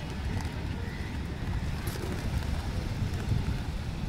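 Wind buffeting the microphone over a large flock of feral pigeons, their wings flapping and fluttering as birds take off and land close by.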